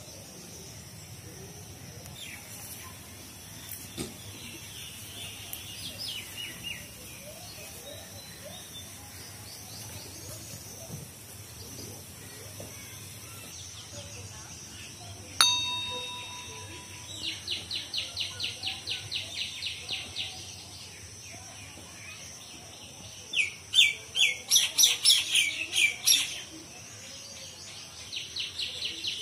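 Birds calling in a garden: a fast, even run of high chirps about halfway through, then louder, sharper chirps near the end, over a steady high-pitched whine. A sudden click with a short ringing tone comes just before the first run of chirps.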